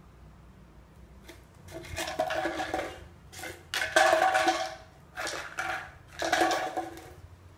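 A plastic medicine bottle with kibble inside, rattling and knocking in a series of bursts as a dog pushes and rolls it about to get the food out. The loudest burst comes about four seconds in.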